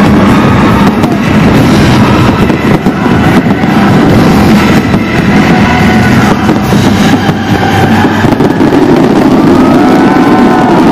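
New Year fireworks display going off without a pause: dense, overlapping bangs and crackling, very loud throughout, with a few rising-and-falling whistles near the end.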